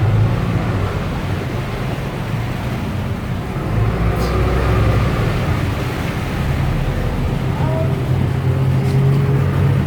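A boat's engine running steadily with a low drone, over a haze of water and wind noise.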